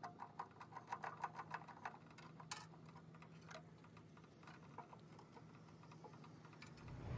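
Faint, quick clicks of a screwdriver working the terminal screws on a meter test switch, densest in the first two seconds, then scattered.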